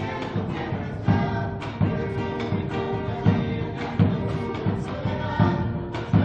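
Music with a steady beat and sustained, choir-like held tones.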